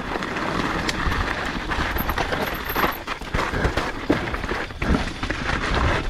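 E-mountain bike riding fast down rocky dirt singletrack: tyres crunching over dirt and rock, with frequent knocks and rattles from the bike over the bumps, and wind rumbling on the microphone.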